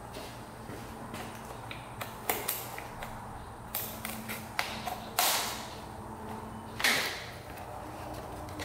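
Plastic headlight mask of a KTM dirt bike being worked loose by hand, its zip ties being snipped: a few sharp clicks and snaps, then two louder scraping swishes of plastic, about five and seven seconds in.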